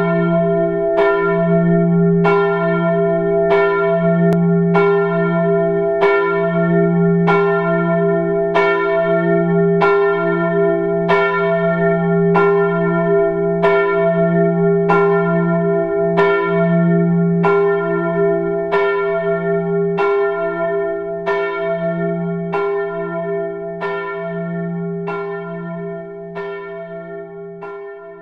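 A single church bell tolling the same note over and over, a little faster than one stroke a second, its hum ringing on between strokes. The tolling fades out near the end.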